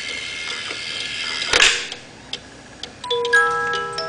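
Antique German cuckoo clock striking: its works run with a loud clatter about a second and a half in, then from about three seconds in its music box starts playing a tune in clear, ringing notes.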